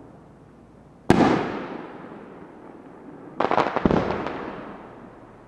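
Aerial fireworks bursting: one sharp bang about a second in that echoes as it fades, then a quick run of sharp pops about three and a half seconds in, fading away.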